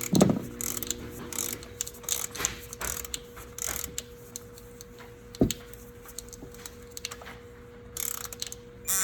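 Hand ratchet wrench clicking in short irregular runs as bolts are turned, with a couple of dull knocks, one at the start and one about halfway through. A faint steady hum sits underneath.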